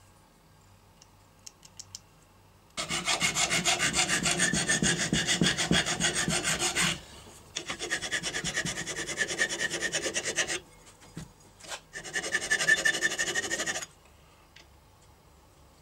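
Flat hand file rasping back and forth across the neck of a steel CO2 cartridge held in a vise: three runs of quick strokes, the first starting about three seconds in, with short pauses between them.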